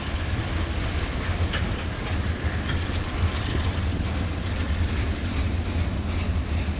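Ferromex train rolling past: a steady low rumble of wheels on rail, with a few faint clicks.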